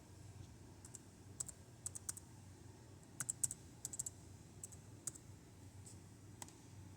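Keys being typed on a computer keyboard: faint, irregular key taps, some in quick clusters of two or three, typical of re-entering a Wi-Fi password.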